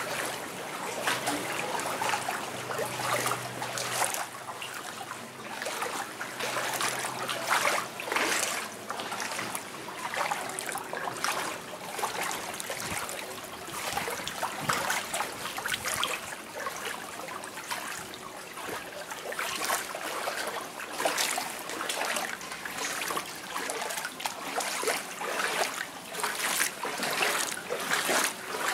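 Someone wading through shallow floodwater, the water sloshing and splashing with each step at an uneven pace of about one or two steps a second.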